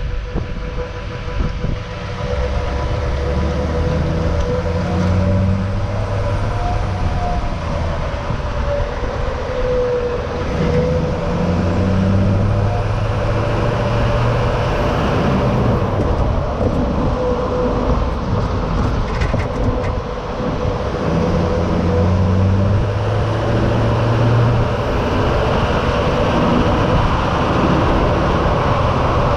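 Duramax LMM 6.6-litre V8 turbodiesel of a 2008 Chevrolet Silverado 3500 HD, heard through its stock exhaust and muffler while the truck is driven, over steady road and wind noise. The engine note climbs and steps back down several times, as the truck pulls up through the gears.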